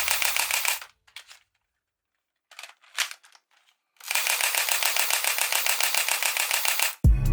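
Toy gun firing in rapid automatic bursts, an even run of quick clicking shots: one burst stops about a second in, a few separate mechanical clicks follow, then a second burst of about three seconds.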